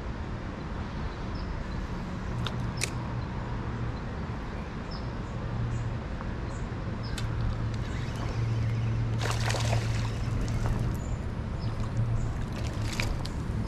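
Steady low rumble of distant road traffic with a light trickle of creek water; a short burst of noise comes about nine seconds in.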